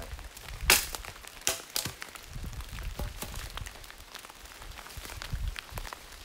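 Rain drips pattering on leaves and a tarp as scattered fine ticks, with three louder sharp taps in the first two seconds and a soft low rumble underneath.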